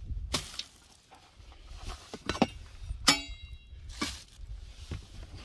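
Cooking gear in a plastic storage bin being handled: a few separate knocks and clicks of plastic and metal. About three seconds in comes one short, ringing clink.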